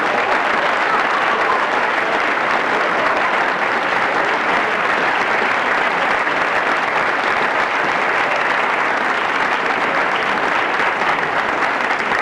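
A large crowd applauding, a dense, steady wash of many hands clapping at once.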